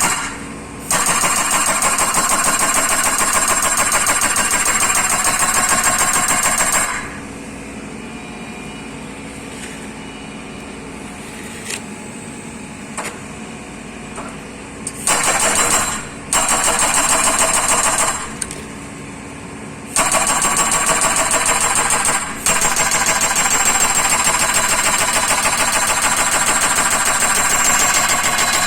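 Hydraulic breaker on a Hyundai Robex 140W-7 wheeled excavator hammering in several long bursts of rapid blows. The excavator's engine runs steadily in the gaps, the longest lasting about eight seconds.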